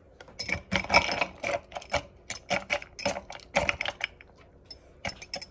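Ice clinking against a drinking glass as a boba drink is stirred: quick, irregular clinks, some with a short ring, thinning out about four seconds in, with a few more near the end.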